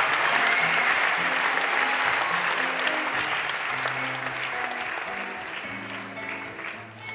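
Concert audience applauding and cheering, dying away over several seconds, while an acoustic guitar keeps playing underneath.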